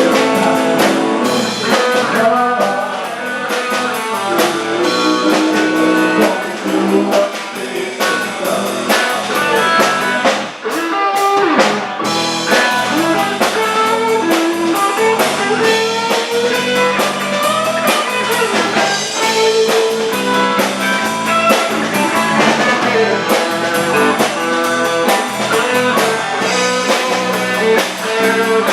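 Live rock-and-roll band playing an instrumental passage, with a guitar carrying the melody over a drum kit's steady beat.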